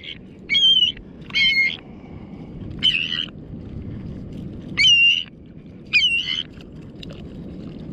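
A bird tangled in fishing line squawking in distress while it is handled: five short squawks at uneven intervals.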